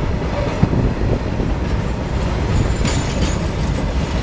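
Freight train's open-top goods wagons rolling past close by: a steady low rumble of steel wheels on the rails with scattered knocks, and a short burst of higher noise about three seconds in.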